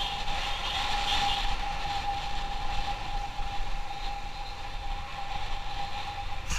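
Motorcycle on the move at a steady speed: the engine runs with a steady high tone over rumbling wind noise on the microphone.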